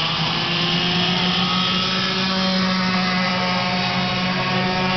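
Several racing go-kart engines running together on track, a steady mix of engine tones that rise and fall slightly in pitch.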